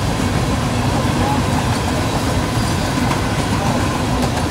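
Freight train of covered hopper cars rolling past at a steady pace: the continuous rumble and rattle of steel wheels on the rails, with a faint steady high tone above it.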